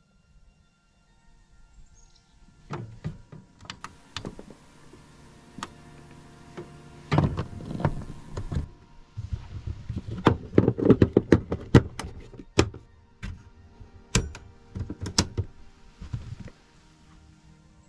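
Many sharp clicks, knocks and thumps of things being handled, most frequent around the middle, over quiet background music.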